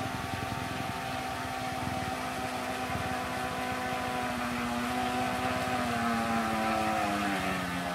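Heng Long 3837 RC speedboat's twin 380 brushed electric motors running at speed, a steady electric whine that falls in pitch near the end as the motors slow.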